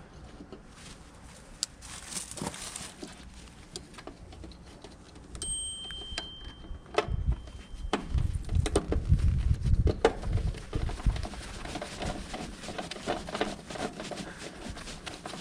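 Scattered clicks, taps and light rattles of tools and small metal parts being handled during a contactor replacement. A louder low rumble runs from about seven to ten seconds in, and a short high steady tone sounds about five and a half seconds in.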